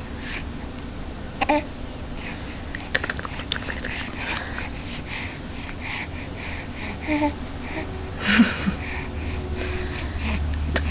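A young baby's wheezy, sniffly breathing, with a quick regular run of breaths in the middle and a few short grunts, the loudest about two seconds before the end.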